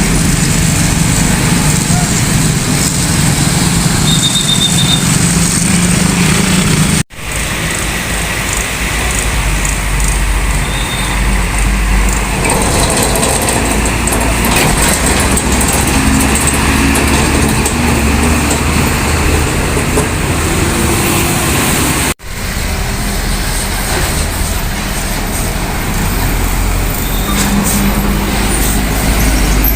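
Heavy road traffic, with trucks and buses running past and a steady low engine rumble over tyre and road noise. The sound breaks off abruptly twice, about seven seconds in and again about twenty-two seconds in.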